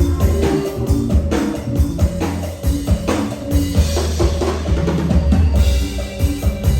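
Band music in Thai Isan toey style, with a drum kit keeping a steady beat over a heavy bass line and sustained melody notes.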